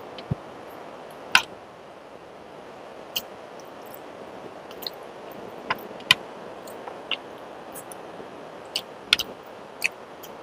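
Eating sounds: scattered short, sharp mouth clicks and smacks from chewing a meal of rice and fish, coming irregularly about once a second, over a steady background hiss.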